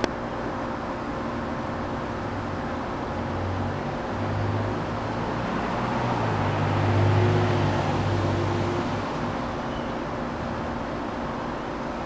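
A low drone, like a passing road vehicle, swells over a steady outdoor background hum from about three seconds in, is loudest a little past the middle, and fades away well before the end. A single sharp click right at the start.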